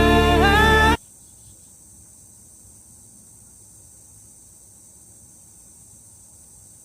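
A sung ballad with accompaniment cuts off about a second in, leaving a steady, high-pitched chorus of insects.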